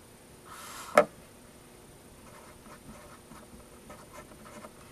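A single sharp knock about a second in, then a pencil writing numbers on paper: faint, small scratches and taps.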